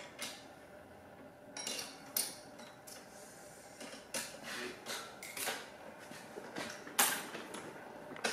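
Metal clinks and short scrapes of steel brick-profile fittings as the bolts at the stay-bar bracket are tightened. They come irregularly, with a sharp clank about seven seconds in.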